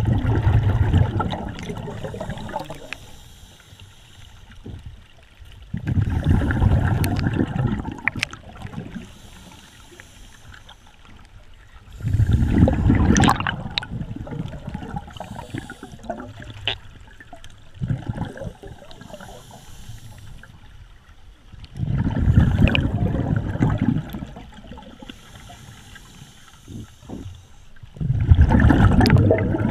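A scuba diver breathing underwater through a regulator, picked up by an underwater camera: exhaled bubbles rush out in bursts of about two seconds, roughly every six seconds, with quieter stretches between.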